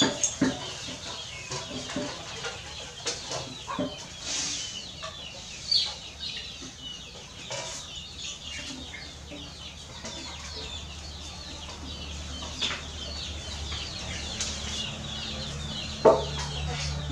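Chickens clucking and chirping in the background, with scattered small knocks and handling noises. Near the end, a sharp metal clank as the pig head is set down on a metal tray.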